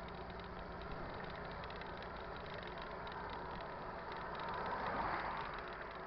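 Highway traffic heard from a bicycle on the road shoulder: a box truck that has just passed pulls away with a steady engine and tyre hum. The noise swells as another vehicle passes close about five seconds in.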